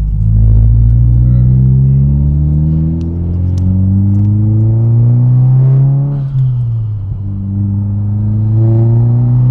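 Turbocharged 2.4-litre flat-four of a 2022 Subaru WRX, still on its stock turbo, accelerating hard, heard from inside the cabin. The engine note climbs steadily for about six seconds, dips at an upshift, then climbs again in the next gear.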